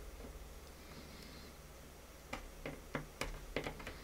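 Small sharp clicks and scratches of a pointed metal pick digging dried superglue out of the hole in a 3D-printed plastic knob. They come as a quick irregular run of about ten in the second half.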